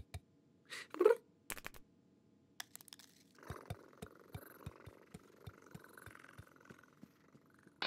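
Cartoon cat's brief voiced mew about a second in, then a few clicks. After that comes a run of soft, faint, evenly spaced ticks, about four a second, for several seconds as the cat moves about.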